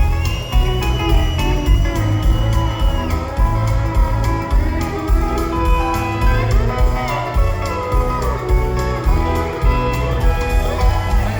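Country band playing an instrumental passage with no singing: guitar and fiddle over a steady bass and drum beat, with a long held high note in the first few seconds.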